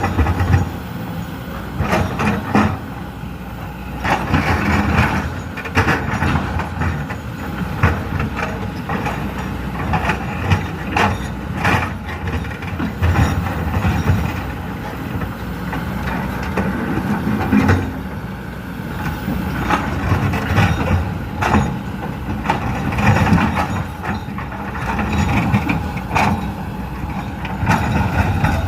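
Hydraulic excavator's diesel engine running under load, with repeated knocks and clanks of large rocks against the steel bucket as it gathers stones.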